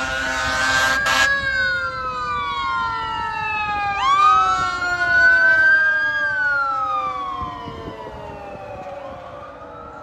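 Fire engine siren wailing, its pitch falling, sweeping sharply back up about four seconds in, then falling again, as the engine passes and grows fainter near the end. A loud horn blast ends about a second in.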